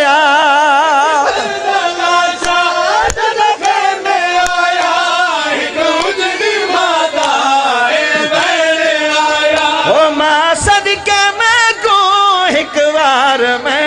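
A male reciter chants a noha, a Shia lament, over a microphone, in long held notes that waver in pitch.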